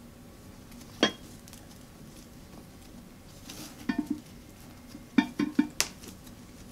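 Glass casserole dish and its glass lid clinking as the carrier around them is pulled and handled: one clink about a second in, a couple more around four seconds, then a quick run of four or five light knocks near the end.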